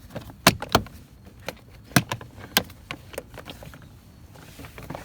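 Plastic interior trim panel of a 2004 Honda Accord coupe being pried and pulled loose from its clips. It gives a handful of sharp separate clicks and knocks, the loudest about half a second and two seconds in.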